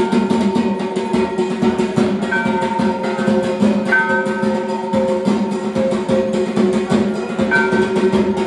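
Music with a quick, steady drum beat over long held tones and short melodic notes.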